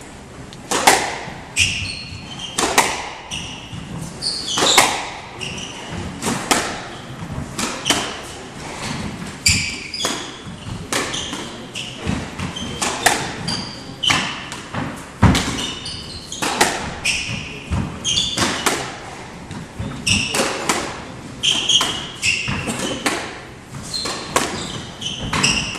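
Squash rally: the rubber ball struck hard by rackets and hitting the court walls in a steady run of sharp smacks, about one or two a second, with short high squeaks from the players' shoes on the wooden floor.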